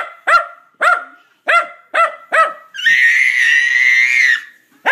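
Dog barking in quick, sharp yaps, six in the first two and a half seconds, then one long high-pitched cry lasting about a second and a half.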